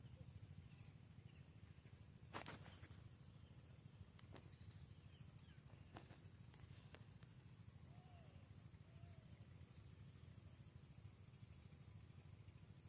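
Near silence: faint outdoor field ambience with a thin, steady, high-pitched insect trill that pulses on and off. A low rumble runs underneath, a few soft knocks come through, the clearest one about two seconds in, and two faint short calls are heard about eight and nine seconds in.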